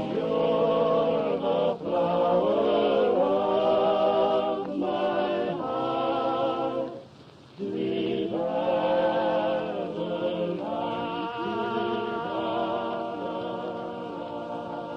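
Barbershop-style a cappella singing: several male voices holding close-harmony chords, with a short break about seven seconds in.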